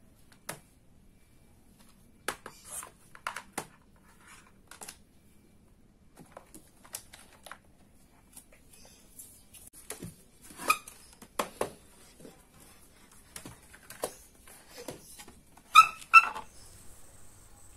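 Handling noise: scattered light knocks, taps and rustles of objects being moved about on a desk, more frequent in the second half, with two short high squeaks near the end.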